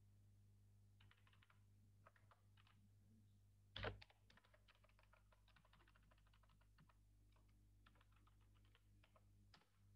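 Faint typing on a computer keyboard, in short runs of key clicks, with one louder thump about four seconds in. A low steady hum runs underneath.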